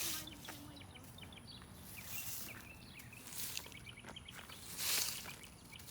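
Small birds chirping in quick series of short, high notes, broken by several brief hissing bursts of noise, the loudest about five seconds in.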